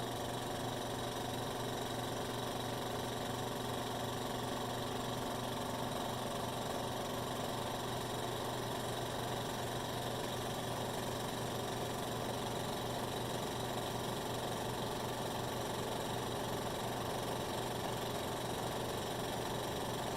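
Rebuilt BRP-1 oilless recovery pump, belt-driven by its electric drive motor, running steadily under load as it pressurizes a test vessel toward 150 psi.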